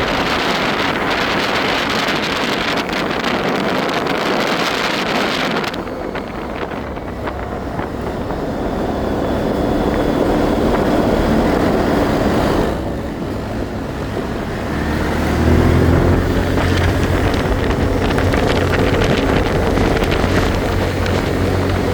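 ATV engine running under way, its pitch shifting with the throttle, under a rushing noise that falls away about six seconds in. The engine dips briefly about 13 seconds in, then runs louder and deeper from about 15 seconds in.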